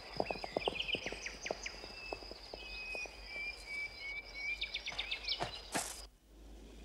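Outdoor countryside ambience: a steady high insect drone with scattered bird chirps, over a run of soft thuds that fade away in the first two seconds. A single sharp crack sounds near the end, after which the ambience is quieter.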